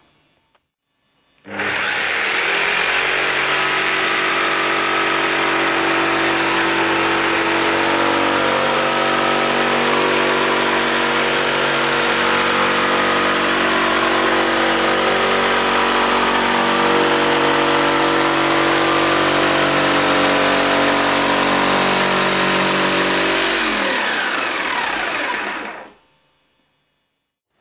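Corded Makita jigsaw cutting a long pass through MDF with its motor running at steady speed. It starts suddenly about a second and a half in and winds down near the end, its pitch falling as it stops.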